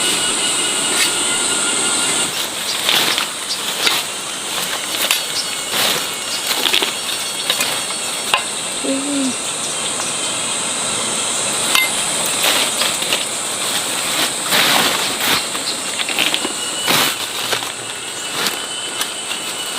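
A high, steady insect drone that breaks off about two seconds in and comes back about halfway through, over frequent short knocks and rustles.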